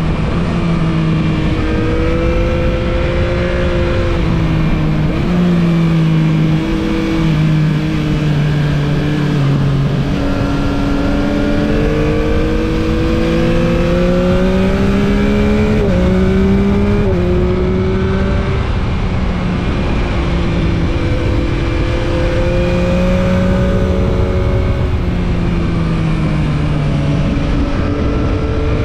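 Yamaha MT-09 SP's three-cylinder engine heard from on board while riding, its note climbing and easing with the throttle and stepping abruptly at several gear changes, over steady wind and road rush.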